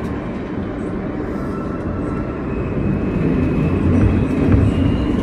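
2007 Kawasaki R160B subway car running between stations: steady rumble of wheels on rail that grows louder about three seconds in, with a faint high thin tone from the drive above it.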